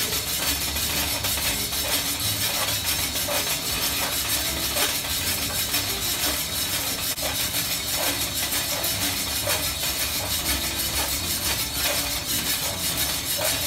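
Coffee beans tumbling inside a stainless steel drum roaster as it turns on the stove: a steady rattling hiss with many small irregular clicks.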